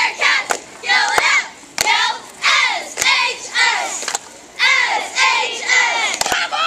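Cheerleading squad shouting a cheer in unison, the words coming in short rhythmic bursts, with sharp hand claps between phrases.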